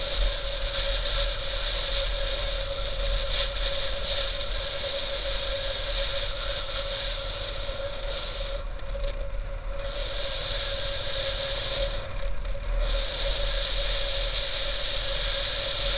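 Motorcycle engine running steadily at cruising speed, under wind and road rumble on a helmet-mounted camera. A high hiss in the mix drops out briefly twice, a little past halfway and again near the end.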